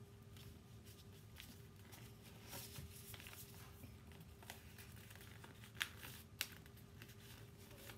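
Faint rustling of a paper sheet being folded and creased by hand into a paper airplane, with two short sharp clicks a little over half a second apart past the middle.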